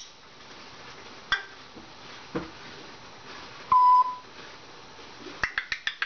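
A single short, steady beep a little past the middle, the loudest sound here. Before it come a click and a duller knock, and near the end a quick run of about six sharp clicks.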